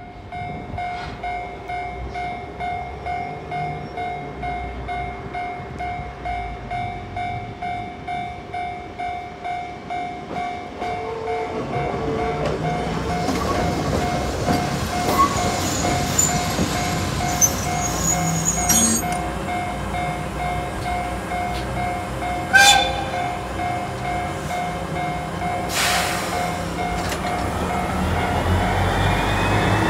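Japanese level-crossing alarm pulsing evenly, a little under two beats a second. From about halfway a Keiyo Rinkai Railway KD60 diesel locomotive comes up and passes close by, its engine and wheels growing louder toward the end, with a single sharp clack about three quarters through.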